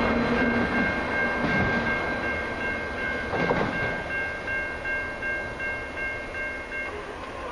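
A CN mixed and autorack freight train rumbles and fades as it rolls away after its last cars have passed. A level-crossing warning bell rings in a steady repeating rhythm over it, then stops abruptly about seven seconds in as the crossing clears.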